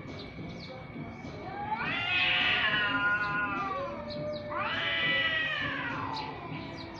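Domestic cat yowling in a face-off with another cat: two long, wavering caterwauls, the first starting about a second and a half in, the second about four and a half seconds in. It is a threat yowl, the warning of a cat on the verge of a fight.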